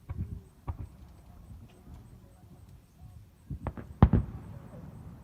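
Fireworks shells bursting as booms: two in the first second, then three in quick succession about three and a half seconds in, the last and loudest followed by a trailing rumble.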